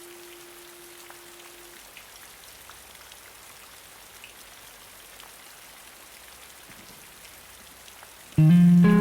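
Steady rain with scattered drop ticks. One last sustained guitar note rings and fades out in the first two seconds. Near the end a loud electric guitar chord comes in suddenly.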